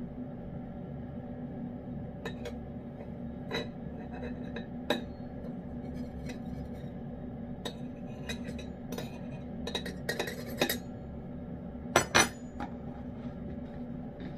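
A metal table knife clinking and tapping against a ceramic dish and metal cat food cans in scattered sharp clinks, with a cluster a little past halfway and two loud clinks near the end. A steady low hum runs underneath.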